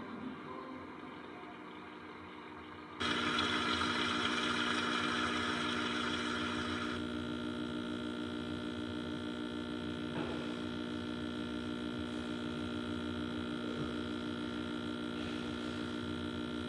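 Ident music from a television's speaker. A held chord of steady tones comes in suddenly about three seconds in and holds to the end.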